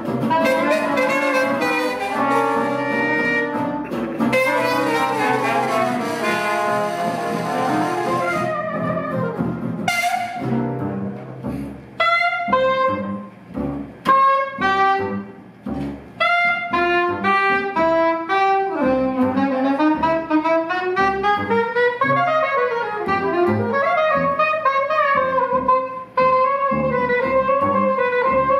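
Small New Orleans-style jazz band of trumpet, trombone, soprano saxophone, guitar and upright bass playing together for about ten seconds. Then a few short, separated ensemble hits, and from about a third of the way in a soprano saxophone solo over guitar and bass.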